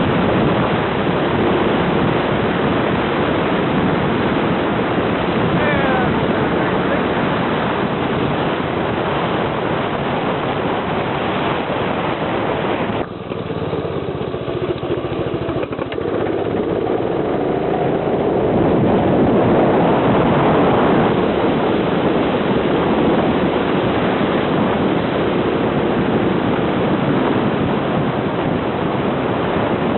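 Harbor Freight Predator 212cc single-cylinder engine of a go-kart running hard on a top-speed run, mixed with heavy wind rush on the microphone. About 13 seconds in the engine drops off suddenly for a few seconds, then its pitch climbs back up.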